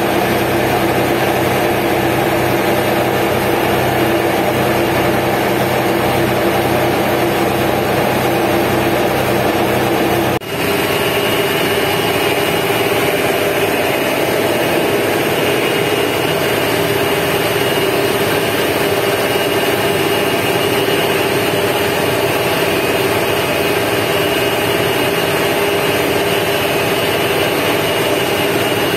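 Passenger riverboat's engine running steadily underway, a loud, even hum. About ten seconds in there is a brief break, after which the hum is slightly higher in pitch.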